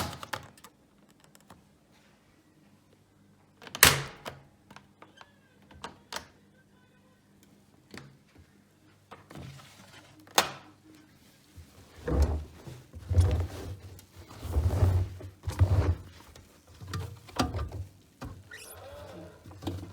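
Knocks and thuds from a Bosch Aquasensor WFP3231 washing machine: a loud sharp knock about four seconds in, scattered clicks, then a run of irregular low thuds in the second half.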